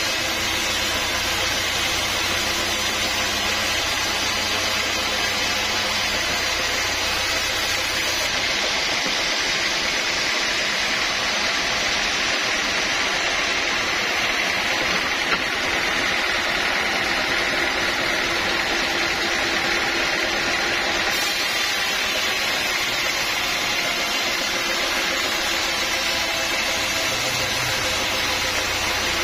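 Sawmill saw running steadily, a loud even hiss over a low motor hum. The hum drops out about a third of the way in and comes back near the end.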